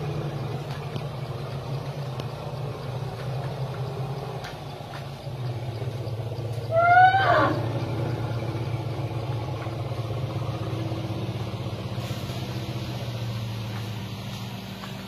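Steady low hum of an idling vehicle engine. About seven seconds in, one short trumpeting call from a wild Asian elephant, rising and then falling in pitch, is the loudest sound.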